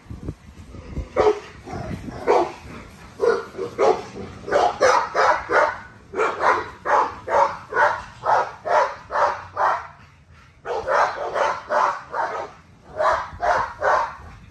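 An American bully dog barking over and over, about two barks a second, in long runs with a short break about ten seconds in.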